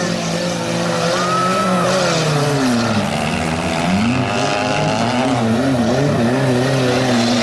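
Engines of several stripped-down stock cars racing together on a dirt track, revving up and down so the pitch falls and rises repeatedly.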